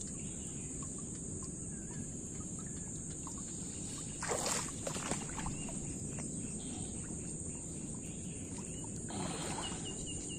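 A steady high-pitched chorus of crickets, with brief rustling from the mesh umbrella fish trap being handled, loudest about four seconds in and again near the end.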